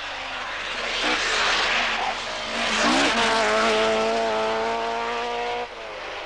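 Ford Escort Mk2 rally car driving past at speed. Engine and tyre noise build to their loudest about halfway, with a short dip and rise in engine pitch around three seconds in. A steady engine note then holds and drops away suddenly near the end.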